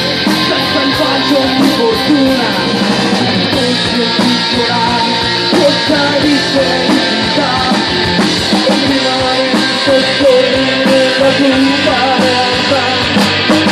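Noise-rock band playing live in an instrumental passage: electric guitars and a drum kit with frequent cymbal hits, loud and dense.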